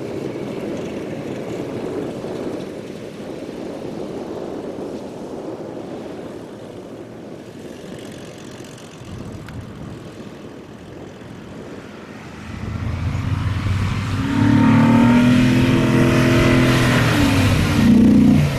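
4x4 engine with a low rumble at first, then revving up loud about two-thirds of the way in, its pitch wavering. It drops off sharply near the end as the driver lifts off the throttle.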